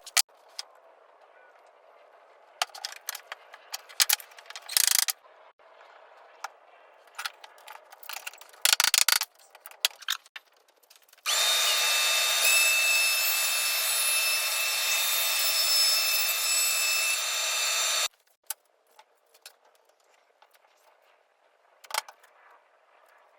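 CNC router spindle cutting into a wooden whiskey barrel lid. Short, broken bursts of cutting come first, then about seven seconds of steady cutting with a high whine, then it stops, leaving only a few faint ticks.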